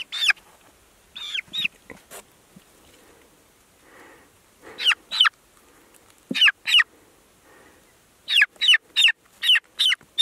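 Young chicken peeping loudly, with sharp calls that each fall in pitch. They come in pairs at first, then as a fast run of about seven near the end. These are the loud, falling peeps a chick gives when it is cut off from its flockmates.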